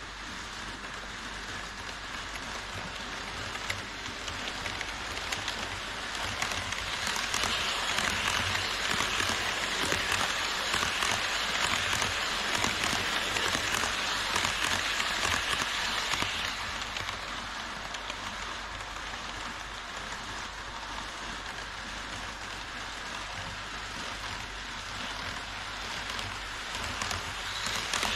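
HO-scale model trains rolling on KATO Unitrack viaduct track: a steady rushing rattle of metal wheels on the rails. It swells for several seconds about a third of the way in, as an E5 series Shinkansen model passes close by, and rises again near the end.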